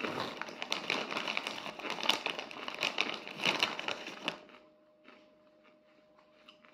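Clear plastic bag crinkling as hands rummage through it, a dense crackle that stops abruptly about four seconds in.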